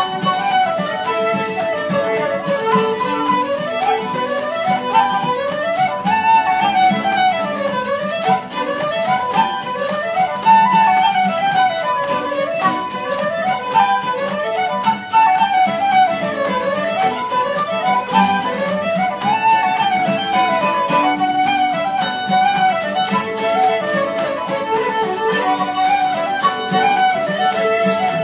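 Irish traditional session music: fiddles playing a fast reel melody in quick rising and falling runs, with guitar chords strummed underneath.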